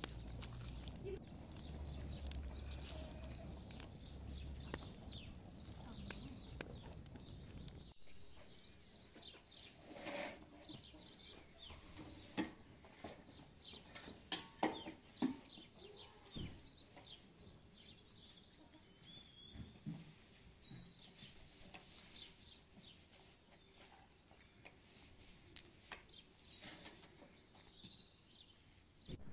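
Village-yard ambience: a low rumble for the first eight seconds or so, then scattered knocks and taps with short high chirps.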